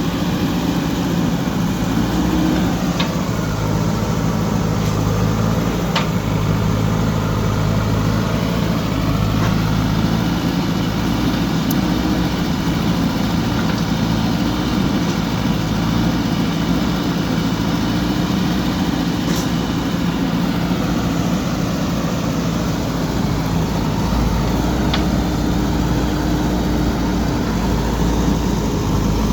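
JCB backhoe loader's diesel engine running steadily while digging, its pitch shifting now and then as it works. A few sharp metallic clanks come through.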